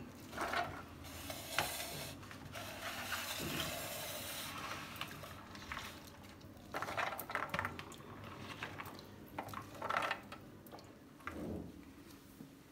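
Wet cut cluster beans scooped by hand from a tub of water into a steel colander: soft wet rustles and patters, with water trickling through the colander for a few seconds early on, then a few short handfuls dropping.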